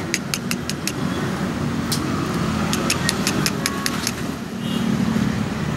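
Steady low engine rumble of a motor running nearby, with two short runs of rapid, sharp high-pitched ticks, at the start and about three seconds in.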